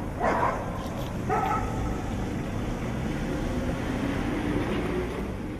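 A dog barking twice in the first second and a half, over a steady low hum of distant street traffic.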